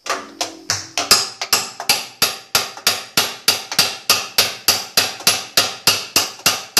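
Small hammer striking the basket's left-hand-threaded hub nut inside a GE 15 kg washing machine drum, about three sharp strikes a second. The hammering drives the nut tight so the basket can no longer work loose and bang against the sides during spin.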